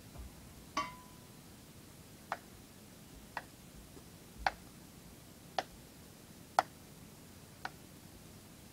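Sharp clicks repeating evenly about once a second, seven in all; the first has a short ringing tone after it.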